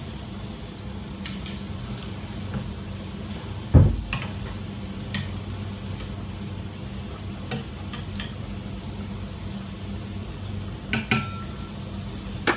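A spoon stirring boiling chicken curry in a stainless steel pot, with scattered clicks and scrapes of metal against the pot over a steady low hum. A loud thump about four seconds in.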